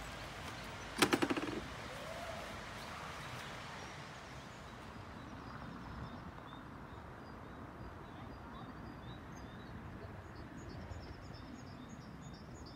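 A sheep bleats once about a second in, a short quavering baa. Afterwards small birds chirp faintly over a quiet outdoor background.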